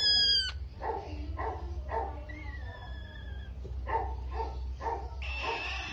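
Young green parrot chick calling: a loud, high squawk at the start, then a run of short calls repeated about twice a second, and another loud squawk near the end.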